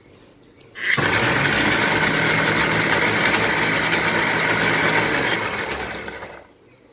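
Electric mixer grinder's motor running with its stainless steel jar, grinding soaked almonds and a little water into a paste. It starts about a second in, runs steadily at full speed, then winds down near the end.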